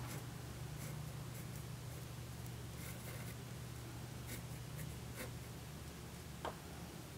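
A pen writing on a paper tag: faint, irregular scratches of the tip against the card, over a steady low hum.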